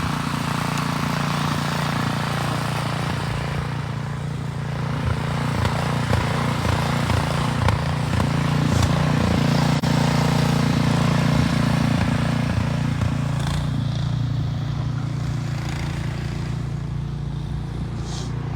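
An engine running steadily, a low even hum that stays at much the same level throughout.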